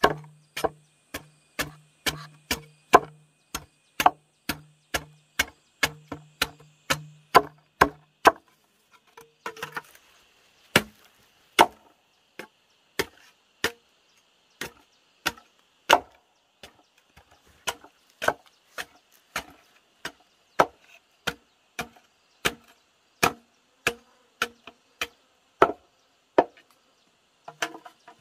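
Repeated chopping strokes on wood, about two a second for the first eight seconds, then slower, about one a second.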